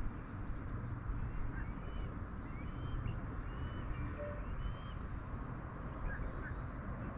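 Wind buffeting the microphone in a steady rumble, with faint short bird chirps every second or so and a thin steady high whine underneath.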